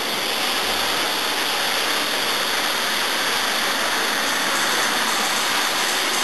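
O gauge electric train running on its track: a loud, steady, even noise with no clear pitch or rhythm.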